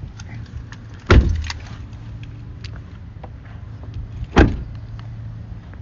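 Two heavy thuds about three seconds apart, car doors being shut as the occupants get out, over a steady low hum.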